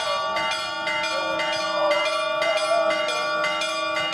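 Greek Orthodox church bells ringing festively, struck rapidly about two to three times a second, their tones ringing on over one another.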